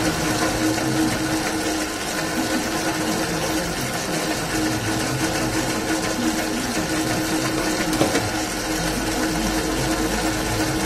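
Famag Grilletta spiral dough mixer with an inverter speed control, running at speed 6 of 10 and kneading a small batch of dough: a steady motor hum with one constant tone. A single light knock comes about eight seconds in.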